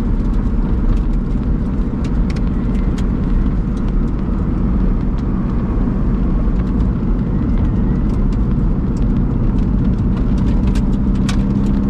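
Supercharged Toyota 2ZR 1.8-litre four-cylinder of a Lotus Elise Sport 220 II running as the car is driven, heard from inside the cabin, with the engine note rising and falling together with road noise. Sharp ticks sound here and there.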